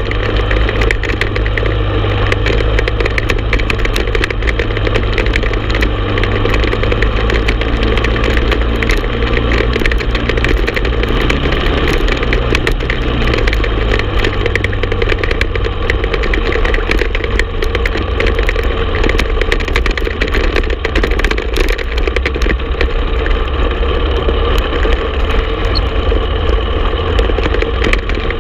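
Honda TRX450 ATV's single-cylinder four-stroke engine running steadily under way, heard close up from the handlebars; its note shifts about eleven seconds in.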